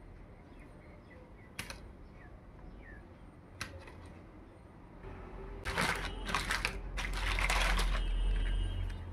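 Small plastic toy accessories being handled and set down: two sharp plastic clicks, then a couple of seconds of dense rustling and clattering in the second half.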